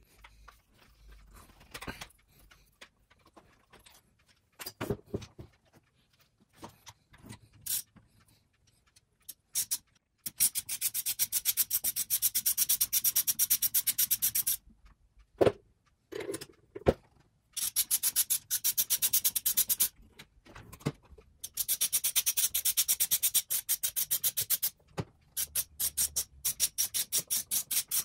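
Socket ratchet clicking in rapid, even runs as it spins the 15 mm bottom nuts off a suspension fork's lowers: four runs of several seconds each in the second half. Before that come scattered clicks and knocks as the socket is fitted and the nuts are broken loose.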